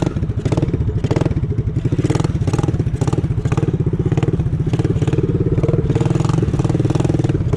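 Motorcycle engine running under the rider while riding, a deep, rapid, even pulsing exhaust beat. The rider calls the bike one that "ronca pra caramba", meaning it has a very loud exhaust note.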